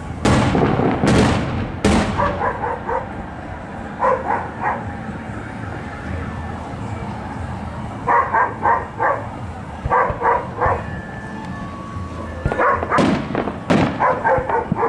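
Fireworks going off with several sharp bangs in the first two seconds and again near the end. In between, a dog barks in short runs of three or four barks, five times over.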